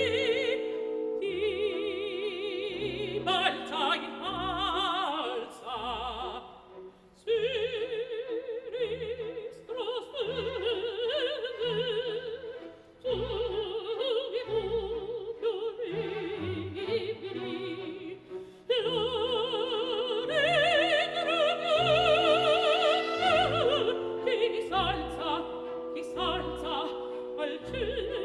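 Operatic solo voice singing with a wide vibrato over an orchestra's pulsing accompaniment, in phrases with brief breaths between them.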